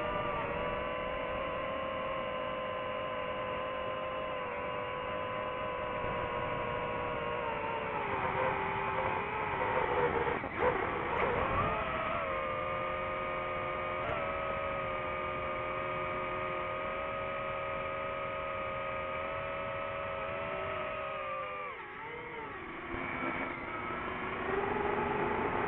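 DJI FPV drone's motors and propellers humming in flight, a steady tone with overtones. The pitch steps down a little about eight seconds in, with a brief louder swell around ten seconds, and it dips and shifts again near the end as the throttle changes.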